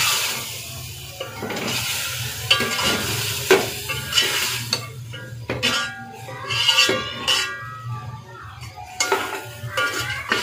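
A steel ladle stirring and scraping through a thick tripe curry in an aluminium pot, clinking against the pot's sides in irregular strokes, with the curry sizzling.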